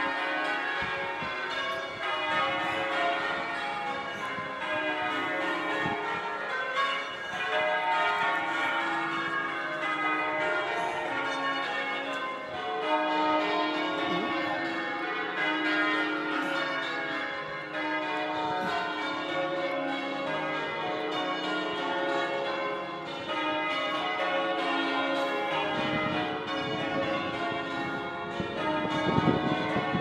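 A ring of eight heavy church bells hung for change ringing, being rung in changes: an unbroken run of bell strikes, each bell's ring overlapping the next. A low rumble on the microphone comes in near the end.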